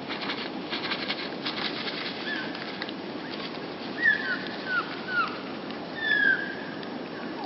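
Small songbirds' short downslurred call notes, about six of them spread over several seconds, after a quick rattle of flutters or clicks in the first two seconds.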